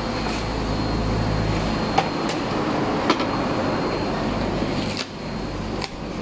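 Cardboard packing being handled and pulled off a new car air-conditioning condenser, with a few short sharp clicks and crinkles. Under it runs a steady rumbling drone.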